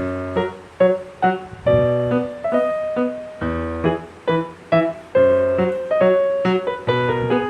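Background piano music: a lively tune of struck notes over low chords, several notes a second, each ringing and dying away.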